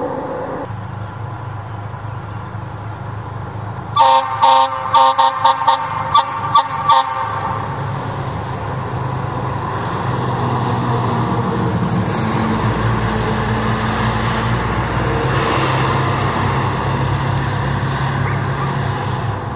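Fire truck air horn sounding a quick series of about eight short blasts, over the steady running of the truck's engine. The engine grows louder in the second half as a fire engine passes.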